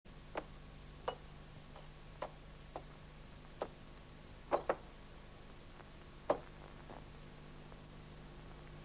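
A metal lighter, a ring of old iron keys and leather wallets set down one after another on a cloth-covered surface: about nine light clicks and clinks at uneven spacing, two in quick succession about halfway through. A faint steady hum lies underneath.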